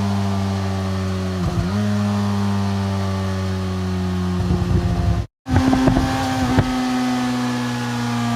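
Motorcycle engine decelerating, its steady drone sinking slowly in pitch. The sound breaks up briefly about a second and a half in, then again from about four and a half to nearly seven seconds in, with a short cut to silence just after five seconds.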